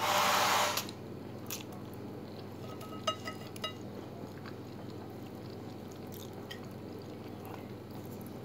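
Spaghetti slurped noisily through pursed lips for about a second, then chewing, with a few metal fork clinks against the plate about three seconds in, over a steady low hum.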